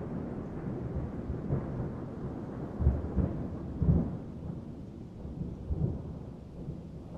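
A low rolling rumble with deeper thumps about three and four seconds in and again near six, fading away toward the end.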